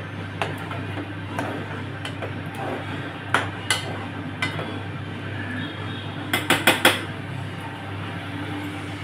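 Metal spoon knocking and scraping against a metal pan while stirring a thick curry, with scattered single clinks and a quick run of four sharp taps about six and a half seconds in, over a steady low hum.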